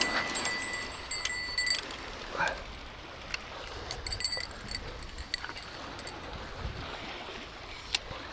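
Steady low noise of river water at the bank, with a few scattered faint clicks.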